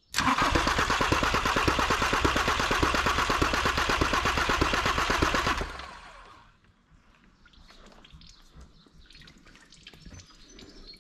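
Starter motor cranking a VW Transporter T5's 2.5 TDI five-cylinder diesel with its glow plugs removed, a rapid even pulsing for about five and a half seconds that then winds down. A clacking noise comes out of one of the five open glow-plug holes, the abnormal 'cloc cloc' being traced.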